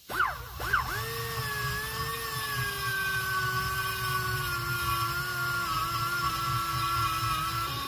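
Long-shank porting die grinder with a carbide burr starting up at the start and then cutting the aluminium exhaust port of a Mazda rotary engine's rotor housing: a steady high whine that sags slowly in pitch as the burr bites, over a rough grinding rasp.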